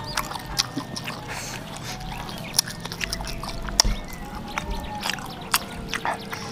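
Close mouth sounds of someone eating: wet chewing and lip smacks, heard as many short irregular clicks.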